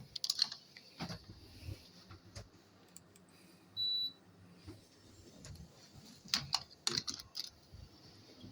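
Scattered light clicks and taps, with one short high electronic beep about four seconds in.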